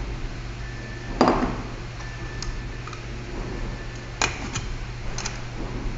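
Electric grain grinder humming steadily, with sharp metallic clanks about a second in and a few more near the end.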